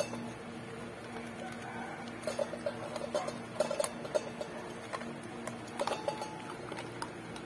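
Dogs crunching dry kibble and nosing it around a stainless steel bowl: irregular small crunches and clicks, over a faint steady hum.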